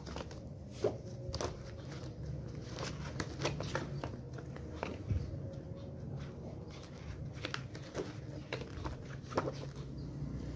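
Glossy photobook pages in a ring binder being turned and handled: scattered soft paper rustles and light taps, over a steady low hum.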